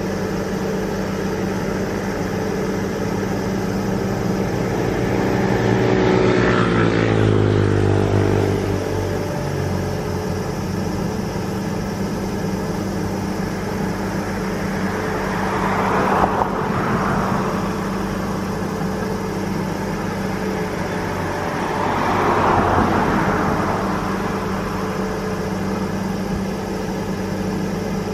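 Steady low drone of heavy diesel machinery on the excavator work barge. Road vehicles pass close by: one about six seconds in, whose pitch drops as it goes by, and two more that swell and fade about sixteen and twenty-two seconds in.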